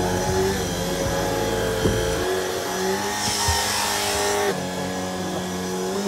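Shark IZ363HT cordless stick vacuum running on carpeted stairs: a steady motor whine over a low rumble. The rumble drops away a little past two seconds in, and a brighter airy hiss comes in from about three to four and a half seconds.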